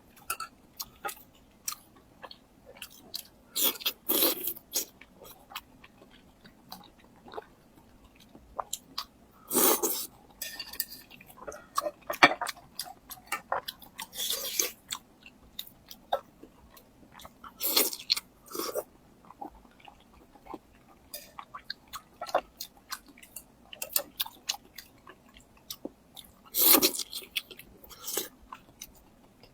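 Close-miked mukbang eating sounds: chewing with many short wet mouth clicks and smacks, and a louder bite or slurp every few seconds.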